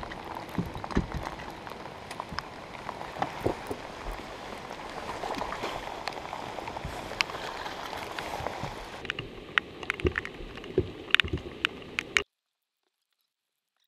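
Steady rain falling on the lake and the boat, with scattered knocks and clicks on the boat deck, thicker near the end. The sound cuts off suddenly about a second and a half before the end, leaving dead silence.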